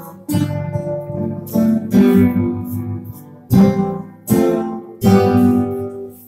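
Acoustic guitars playing a Polish Christmas carol: strummed chords struck every second or so, each left to ring before the next.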